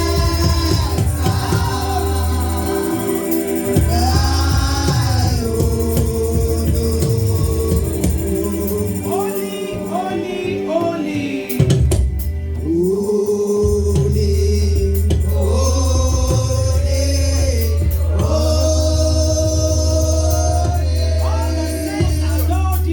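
Gospel music: voices singing together in long held notes over a band with a heavy, steady bass, which drops out for a few seconds midway.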